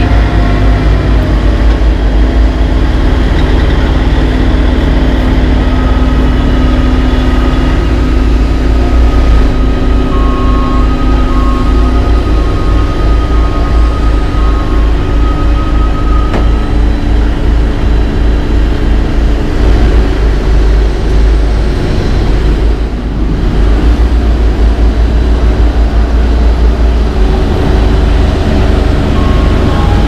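Heavy paving equipment and dump trucks running, with wind buffeting the microphone. A backup alarm beeps at about one beep a second near the start, again around the middle, and near the end.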